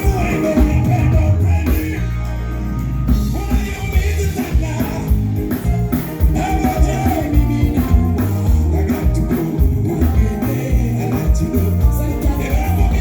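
Amplified live band music with a singer, heavy bass and a steady beat, played through a concert sound system.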